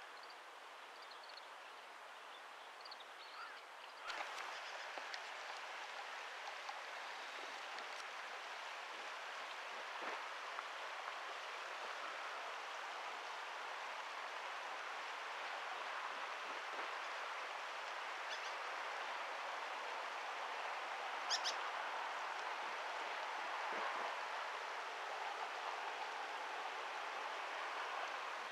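Steady outdoor background noise, a constant even hiss that grows louder a few seconds in. A brief high bird chirp comes about two-thirds of the way through.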